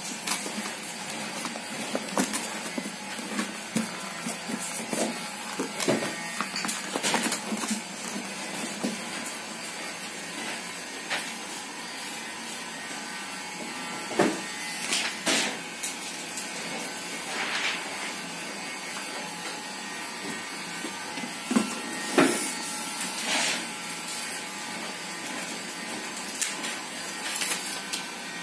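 Cardboard gift box and its packing being handled: scattered rustles and light knocks as bottles are packed, bubble wrap is laid over them and the lid is closed, over a steady mechanical hum.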